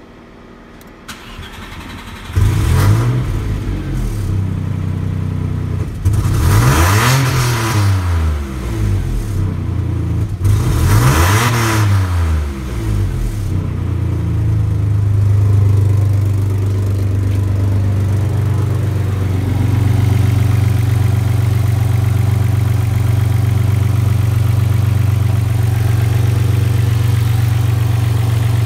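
Audi 80 B4's 2.6-litre V6 (engine code ABC) turned over by the starter and catching about two seconds in, then revved twice, each rev rising and falling back, before settling to a steady idle.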